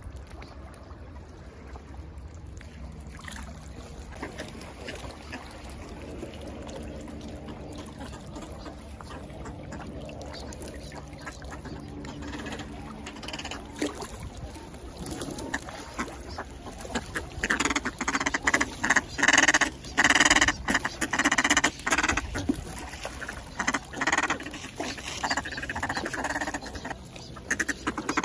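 A flock of dabbling ducks, mostly northern pintails, calling at close range: soft low calls at first, then about halfway through loud, rapid runs of quacks.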